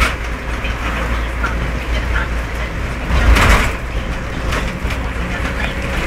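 Car driving through very heavy rain: a steady low road-and-engine rumble under the hiss of rain and spray, with scattered short ticks. A louder rushing swell about three seconds in.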